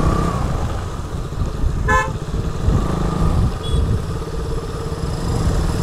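Motorcycle engine running low and steady in slow traffic, with a low rumble of wind on the microphone. A vehicle horn toots once, briefly, about two seconds in.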